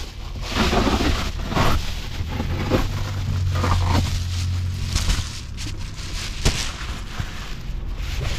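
Reflective foil bubble insulation crinkling and rustling as it is pulled down from a window and rolled up, with a few sharp clicks and the rumble of it rubbing close to the microphone.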